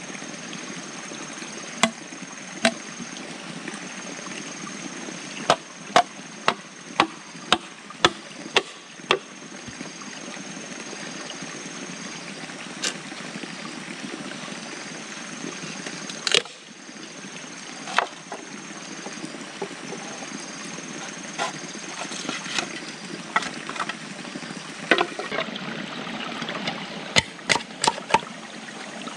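A knife blade chopping and splitting green bamboo: sharp knocks, quickest at about two a second from about five to nine seconds in, with the loudest blow about halfway through. A steady trickle of running water sounds underneath.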